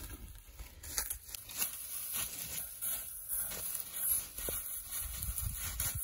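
Crackling and rustling of dry corn stalks and husks as they are trodden and handled, with scattered small snaps.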